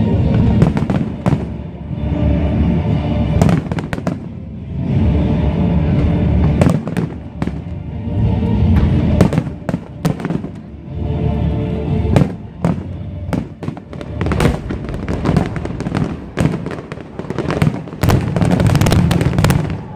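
Fireworks display: aerial shells bursting and crackling in quick succession, coming thickest near the end, with music playing underneath.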